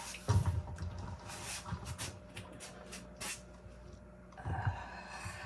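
Scattered light knocks and rustles of a hardboard panel being handled and turned on a work surface, over a faint steady hum.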